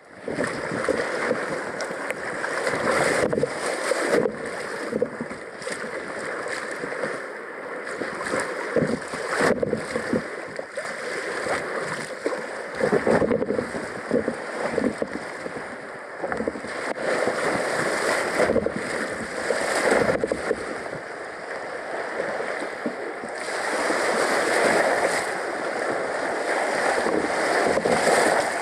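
Water splashing and sloshing around a kayak out on the water, with wind buffeting the microphone. The sound swells and eases irregularly throughout.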